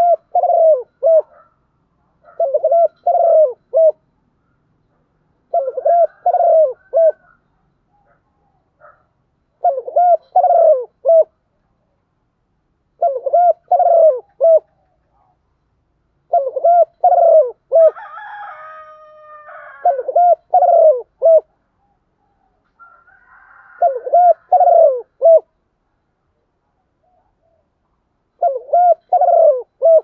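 Spotted dove cooing: a phrase of several coos about every three to four seconds, nine phrases in all. This is the cooing of a decoy bird used to call wild doves in.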